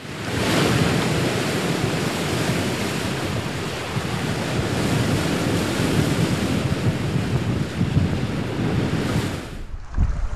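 Ocean waves and wind: a steady rushing wash of surf that swells in at the start and drops away shortly before the end, where low thumps begin.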